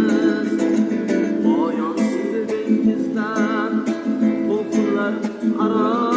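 Music: plucked-string accompaniment under a wavering, vibrato melody line, an instrumental stretch of a song.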